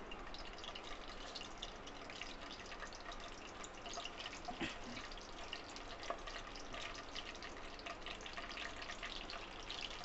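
Whole spices (bay leaves, cinnamon, cardamom and cumin seeds) sizzling gently in hot oil in a pan: a faint, steady crackle.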